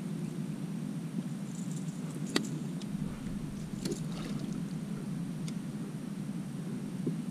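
A steady low hum runs throughout. There is a sharp click about two and a half seconds in, and a small splash on the lake surface about four seconds in.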